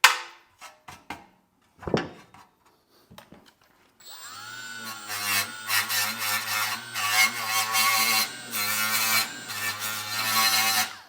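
A few knocks, then about four seconds in a drill spins up and a rotor broach (annular cutter) cuts through the aluminum oil pan wall: a motor whine that wavers in pitch under load, with a gritty cutting noise. It stops just before the end.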